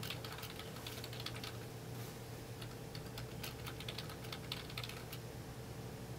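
Irregular light clicks and taps of fingertips on a touchscreen's glass as the interface is touched and flicked, over a faint steady low hum.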